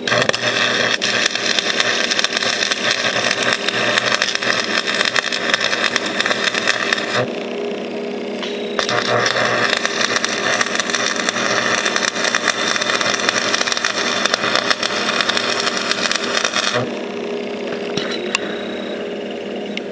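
Stick welder arc crackling as a crack in a mower axle is welded: two runs of about seven and eight seconds with a short break between, then it stops. A steady engine-like hum runs underneath throughout.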